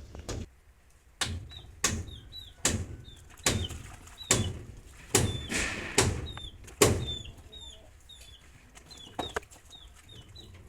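Heavy blows struck in a steady rhythm, about one every 0.8 s for some six seconds, then one more a couple of seconds later. Small birds chirp over them in short, repeated, high calls.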